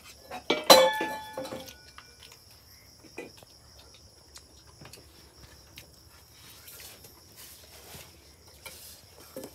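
A steel dish clangs once about a second in and rings briefly. Small clinks of eating from steel plates follow, over a steady high chirring of crickets.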